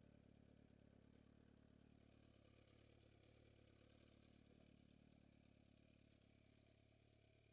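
Faint, steady sound of a sport motorcycle's engine turning over at low revs while the bike rolls slowly.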